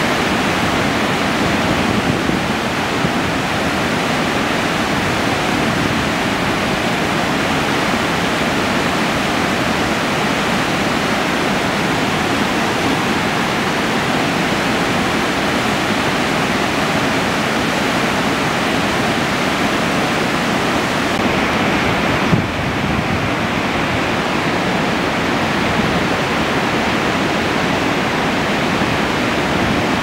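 The 56 m Augrabies waterfall on the Gariep River: a big volume of white water plunging over a rock lip into a deep gorge, a loud, steady, even rush. About three-quarters of the way through there is a brief knock and a slight change in the rush.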